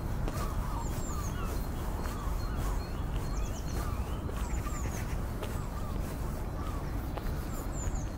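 Small birds chirping, short high notes recurring every second or two, over a steady low rumble and the light tapping of footsteps.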